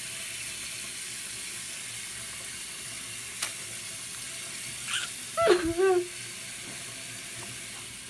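Hot water tap running steadily, with a brief click about three and a half seconds in and a short whining sound about five and a half seconds in.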